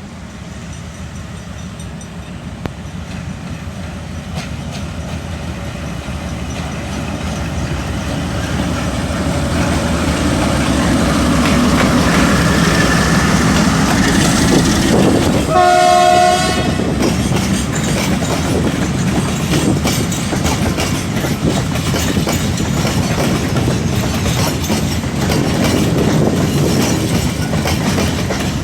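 CRRC diesel locomotive hauling a long freight train of grain hopper wagons. It grows steadily louder as it approaches and sounds one horn blast of about a second just past halfway. After that comes the steady rumble and clickety-clack of the wagons rolling over the rail joints.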